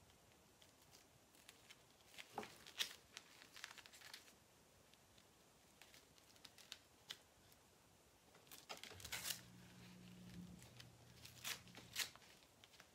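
Faint crinkling and rustling of thin plastic silk-screen transfer sheets being handled and smoothed down by hand, with a few sharper crackles in two short clusters.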